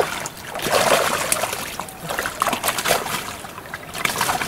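Hooked rohu thrashing at the surface close to the bank as it is reeled in and brought ashore: irregular splashing and sloshing, loudest about a second in.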